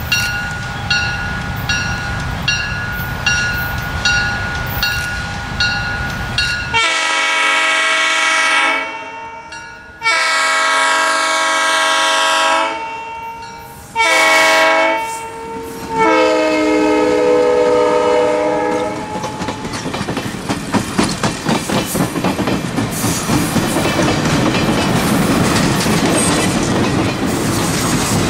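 Grade-crossing bell ringing at about one and a half strikes a second over a low rumble. About seven seconds in, a diesel locomotive's multi-note air horn sounds the crossing signal: two long blasts, a short and a long. The train then passes close by, its passenger cars' wheels clicking over the rail joints in a steady rhythm.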